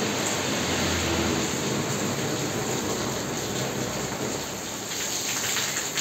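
Heavy rain falling steadily on a tiled yard.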